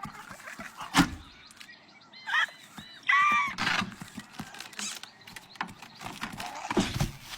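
A sharp knock about a second in, then a quick run of short, arching bird calls.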